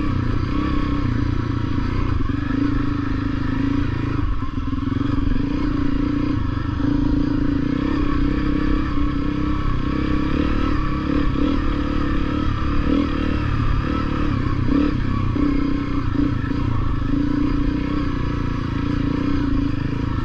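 Honda CRF250L's single-cylinder four-stroke engine running steadily as the bike is ridden over a rough dirt trail, with scattered knocks and rattles from the bike.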